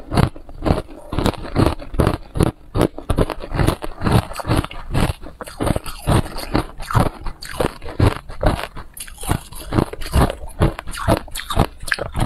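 A person chewing and crunching hard ice close to a clip-on microphone: a rapid, continuous run of sharp crunches, several a second.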